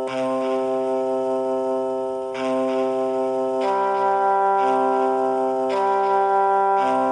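Music of sustained organ-like keyboard chords, each held for one to two seconds before moving to the next chord.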